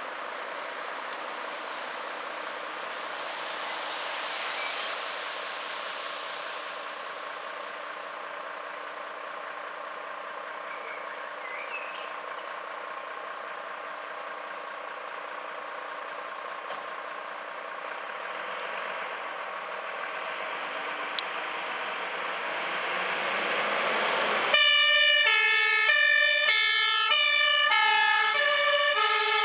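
Mercedes-Benz fire engine's diesel engine running steadily, growing louder as it pulls out. Near the end its two-tone siren switches on abruptly, its two notes alternating.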